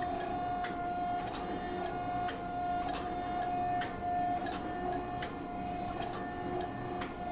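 A power press running with a steady whine and irregular sharp ticks as it squeezes a piece of coil-spring steel flat.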